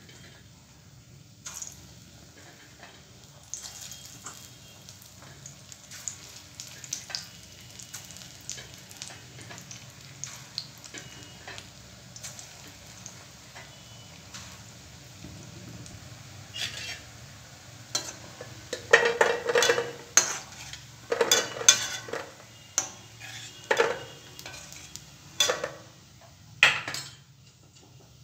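Moong dal pakoras deep-frying in hot oil in an iron kadai, a steady sizzle with a spoon clinking and scraping against the pan. About two-thirds of the way through comes a run of louder clattering strokes as the fritters are stirred and lifted out.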